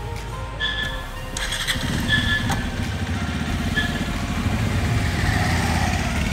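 Motorcycle engine running at idle with a steady low putter that comes up about two seconds in, with three short high beeps over it in the first four seconds.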